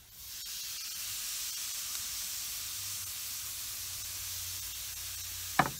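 Marinated flank steak searing on the hot grate of a lump-charcoal kettle grill at about 450 degrees, a steady sizzle that starts as the meat goes down. A single sharp click near the end.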